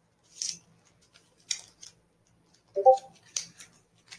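Trading cards being handled, a few short papery swishes and slides. About three seconds in, a short pitched blip is the loudest sound.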